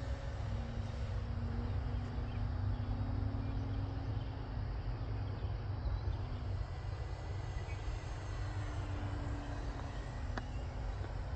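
Distant RC aerobatic plane's motor droning, its pitch wavering slightly as the plane flies around, under a steady low rumble of wind on the microphone.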